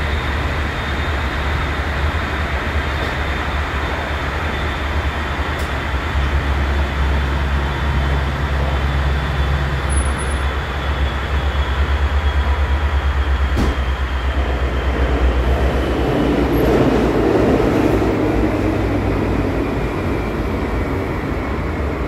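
Cologne Stadtbahn line 18 car heard from inside while running between stops: a steady rumble of wheels on the track and the car body. A faint high whine slowly slides down in pitch, and the rumble grows louder for a few seconds in the second half.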